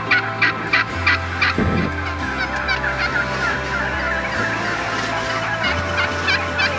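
A flock of wild turkeys calling, several birds at once, with toms gobbling and runs of short, quick calls at about three a second.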